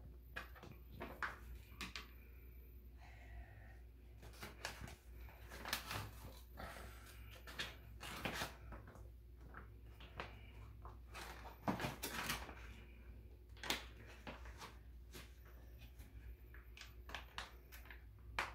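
Paper crinkling and rustling as it is folded and handled around toothbrushes, with irregular light clicks and taps.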